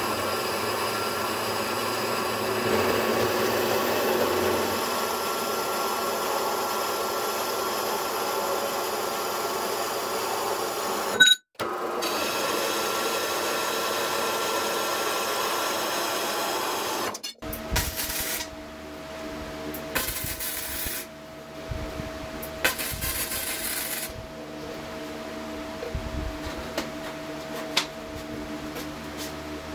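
Horizontal metal-cutting bandsaw running steadily as it cuts through steel square tubing, with a short break about eleven seconds in, and it stops after about seventeen seconds. After that come several short, separate bursts of MIG welding crackle over a steady hum.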